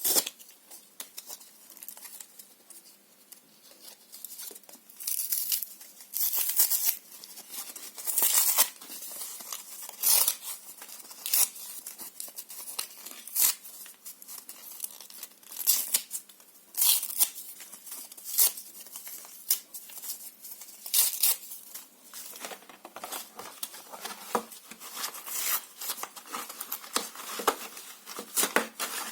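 Paper and cardboard being torn by hand in irregular rips, with crinkling between them and louder tears every few seconds.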